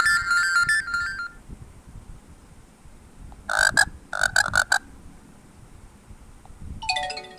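MIUI 12 phone notification tones played one after another. A melodic tone dies away in the first second or so. About halfway, a short sound of about five quick chirps plays, and near the end a quick run of notes falls in pitch.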